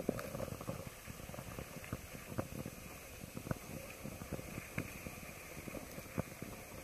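Skis sliding and scraping over packed snow, with irregular crunches and knocks, over a steady low rumble.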